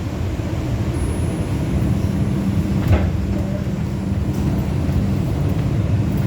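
New York City subway car running between stations: a steady low rumble of wheels on track with a motor hum, and one sharp clack about three seconds in.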